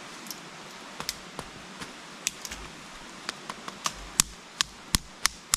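Knife blade chopping at a wooden stick: a run of sharp knocks that starts about a second in and grows louder and quicker, about three a second near the end.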